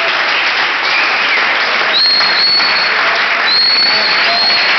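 Audience clapping steadily, with high, steady whistles about two seconds in and again near the end.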